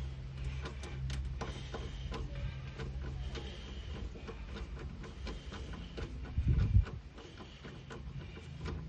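Irregular light clicks and rattles of hands working on plastic parts inside a car door, with a steady low hum in the first few seconds and one dull thump about six and a half seconds in.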